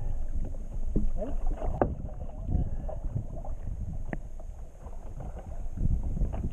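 Water sloshing against a fishing boat's hull with wind on the microphone, and a few knocks as a gaffed yellowfin tuna is hauled up the side and over the gunwale.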